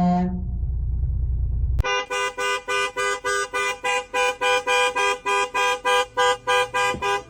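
Car horn honked over and over in short, quick toots, about three a second, as a puppy presses it. Before the honking starts about two seconds in, there is a low rumble.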